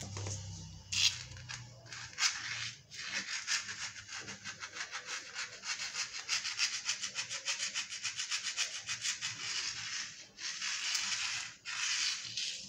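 Siamese cat scratching at the tablecloth. A few separate scrapes are followed by a fast, even run of scratchy strokes, about six a second, lasting several seconds.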